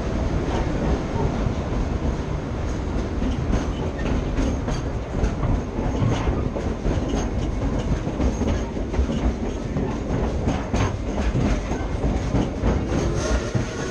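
Steam excursion train rolling along, heard from an open-sided passenger coach: a steady rumble of the cars with the wheels clicking over the rail joints. Near the end, the locomotive's steam whistle starts to blow, a chord of several steady tones.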